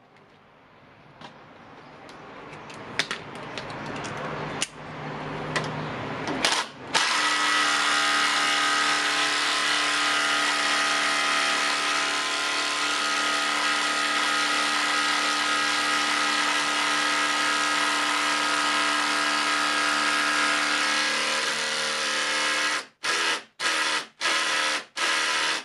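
Panasonic EZ1PD1 compact impact driver hammering a long screw into timber. It builds up over the first several seconds, runs loud and steady at full impact for about fifteen seconds, then cuts out and goes in four short trigger bursts near the end.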